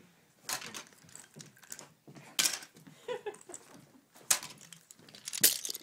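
Handling noise: a handful of sharp clicks and knocks, about five, spread out with short quiet gaps between.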